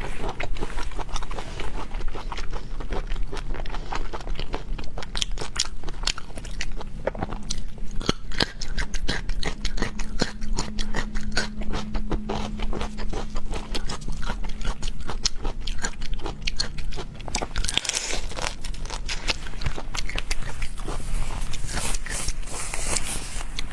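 Close-miked chewing and biting of seafood: a dense run of wet, crunchy clicks, with a couple of brief rustling scrapes near the end. A steady low hum sits underneath.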